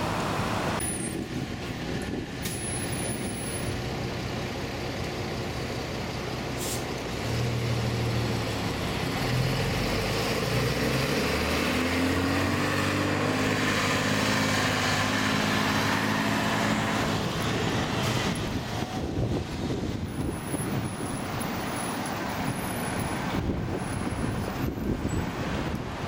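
City bus engine running as the bus drives past close by, over steady street traffic. The engine note builds up about a quarter of the way in, rises a little in pitch through the middle, and fades away after about two-thirds.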